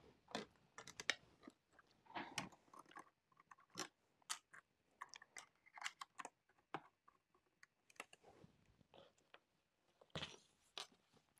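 Faint, irregular clicks, taps and rustles of fabric, a zipper and sewing-machine parts being handled, with a louder cluster of clicks near the end.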